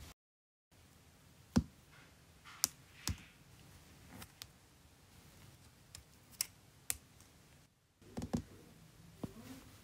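Sharp clicks and taps of small interlocking plastic building pieces being handled and set down, about seven of them, irregularly spaced, with two brief drops to dead silence.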